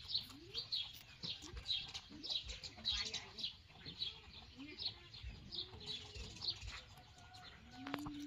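Rabbits chewing crisp cucumber: a quick crunching that repeats about twice a second.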